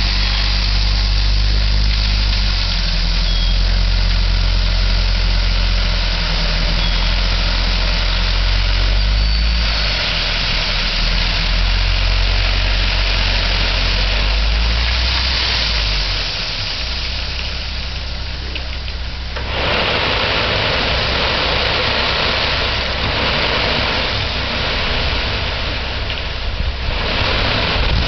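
Dump truck's diesel engine running steadily while its raised bed tips out a load of crushed stone. The low engine note drops about sixteen seconds in, and a loud steady rushing noise comes in near twenty seconds.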